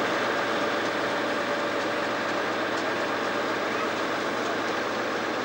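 Brill Model 75 railcar's engine idling while the railcar stands: a steady drone with a held tone.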